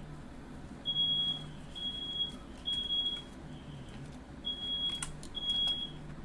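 Smoke alarm sounding its evacuation pattern, a high-pitched beep repeated three times about a second apart, then a pause, then three more, set off by smoke in the room.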